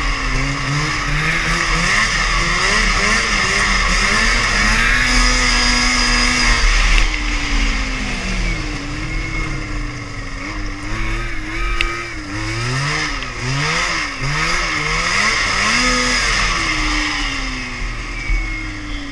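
Vintage snowmobile's two-stroke engine running under the rider at speed, its pitch rising and falling with the throttle through the turns and dropping away near the end as the sled slows, over steady wind noise on the camera.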